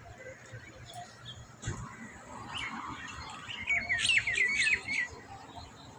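Small songbirds chirping at dawn, with a quick run of sharp, high chirps about four seconds in. A brief knock just before two seconds.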